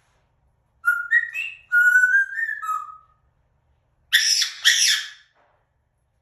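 African grey parrot whistling a quick run of short notes that step up and down in pitch, then giving two harsh squawks about a second later.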